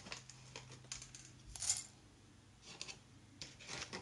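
Metal spoon scraping and tapping against a glass bowl of soaked buckwheat and seeds: a few faint scrapes and clicks, the sharpest about a second and a half in.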